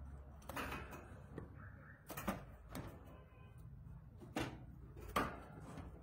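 Scattered light clicks and taps in a wire birdcage, about five in all, the sharpest about five seconds in.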